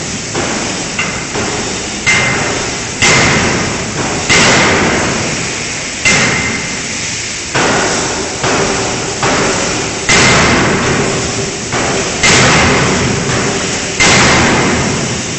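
5-ton electro-hydraulic closed die forging hammer striking a connecting-rod forging: a few lighter blows, then seven heavy blows about one and a half to two seconds apart. Each blow dies away with a ringing tone.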